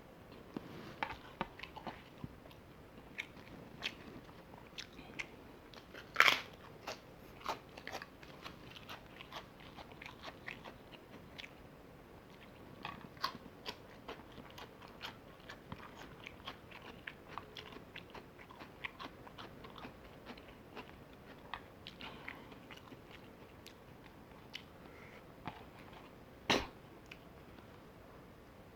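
A person chewing and biting crunchy food close to the microphone, with many small wet clicks and crunches. Two louder crunches come about six seconds in and near the end.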